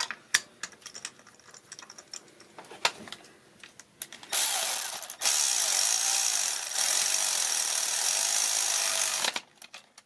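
Cordless ratchet motor whirring steadily for about five seconds, with a brief break near the start, as it runs a spark plug down into the cylinder head, then cutting off. Before it, a few light clicks and taps of the socket and extension being fitted.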